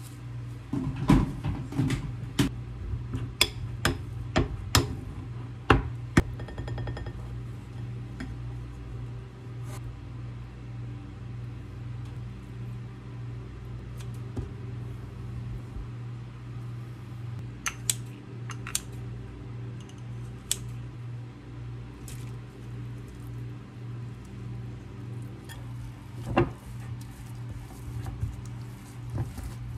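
Food-prep sounds at a ceramic bowl: a run of sharp clinks and knocks from a utensil against the bowl while boiled potatoes are mashed, then a few scattered clicks, including kitchen scissors snipping carrot. A steady low hum lies underneath.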